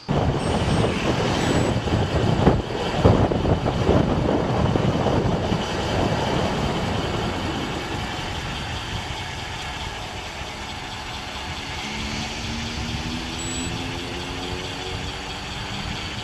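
Wind rushing and buffeting over the microphone of a camera on a road bike going downhill, strongest in the first few seconds. Near the end, a motor vehicle's engine rises in pitch as it speeds up.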